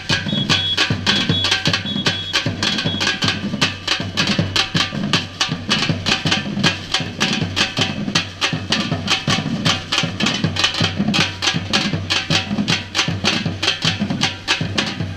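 Samba-reggae drum ensemble playing a steady, fast beat: sharp drum strokes about five a second over deep bass drums.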